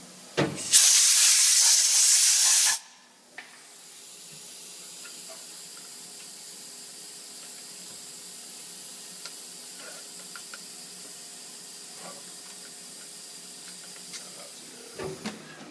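A loud two-second hiss of cutting lubricant being sprayed onto the aluminum workpiece, starting just under a second in and cutting off sharply. After it, the Haas CNC mill runs with a steady hum and a few faint ticks.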